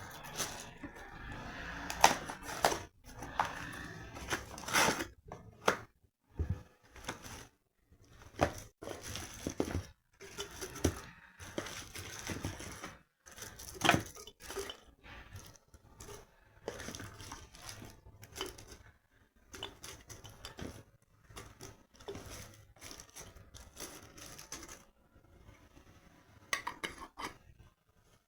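Household objects being handled and set down, among them a small jar of wrapped chocolates: irregular clinks and knocks with rustling in between, the sharpest knocks about two seconds and fourteen seconds in.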